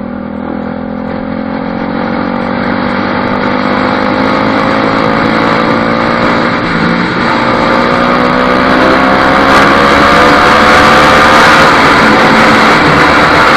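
Bajaj Pulsar RS200's single-cylinder engine through a modified exhaust, accelerating: the pitch climbs steadily, drops once at a gear change about seven seconds in, then climbs again. Wind noise on the camera microphone rises as speed builds.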